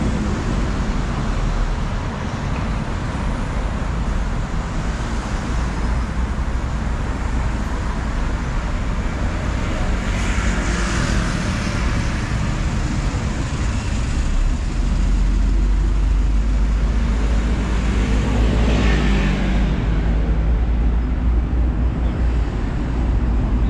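City road traffic: cars and buses running past with a steady low rumble of engines and tyres. Two vehicles pass closer and louder, about halfway through and again near the end.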